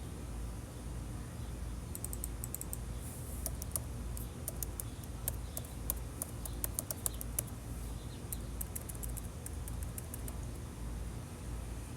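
Typing on a keyboard: irregular runs of sharp keystroke clicks starting about two seconds in and stopping a couple of seconds before the end, over a steady low background hum.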